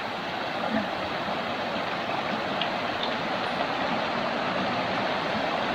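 Creek rapids rushing steadily over rocks, the stream running high after a night of storm rain.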